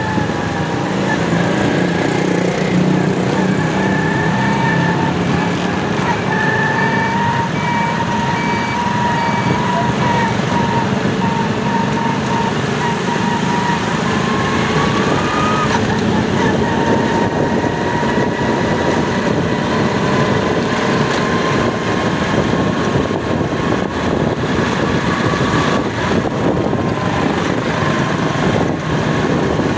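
Motorcycle engine running steadily while riding, with a faint whine that drifts slightly in pitch and wind noise on the microphone.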